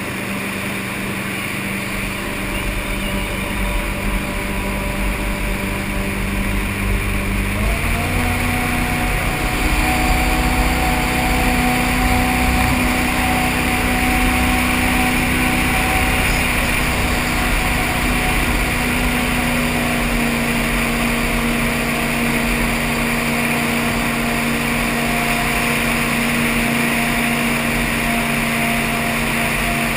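V8 engine of a tunnel-hull jet boat running steadily under way. About eight seconds in the revs step up to a higher, steady pitch and it gets a little louder.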